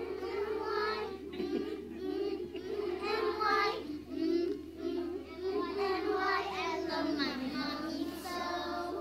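A class of preschool children singing a song together in unison.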